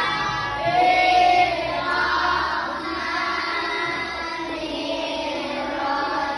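A group of children singing together, holding and gliding between notes.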